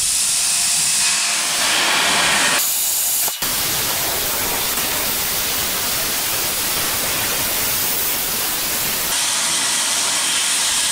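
Miller Spectrum 875 plasma cutter, set on 35 amps, cutting through a metal bushing cup: a steady, loud hiss of the arc and air jet, broken once very briefly about three and a half seconds in.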